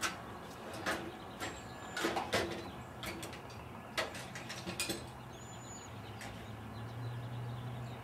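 Irregular metallic clicks and knocks of hand tools and parts being handled, about nine in all, with no steady rhythm. Under them a low hum grows louder in the second half.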